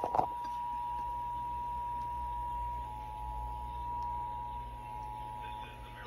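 Emergency Alert System attention signal: the steady two-tone alert (853 and 960 Hz) coming from a television's speaker, announcing a required monthly EAS test. A low hum sits underneath.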